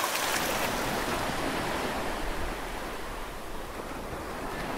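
Sea water and surf: a steady rushing wash that slowly grows quieter.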